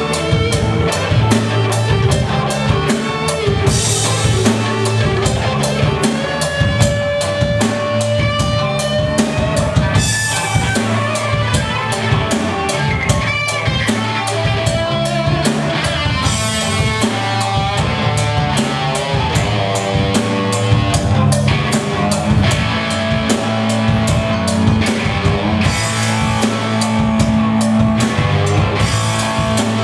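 Live rock band playing an instrumental passage: a lead electric guitar playing melodic lines with bent notes over electric bass and a drum kit keeping a steady beat.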